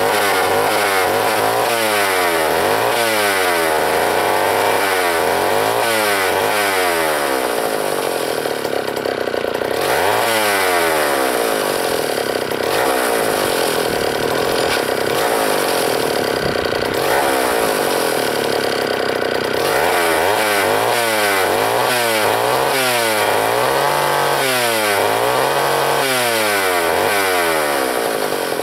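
Sears D-49 80cc two-stroke chainsaw, just started, running free with no wood and revved up and down over and over. There is a steadier stretch in the middle, then a run of regular revs about once a second near the end.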